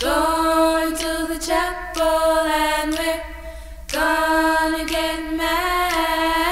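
Unaccompanied vocal music: long, held sung notes, with a new note starting about every two seconds.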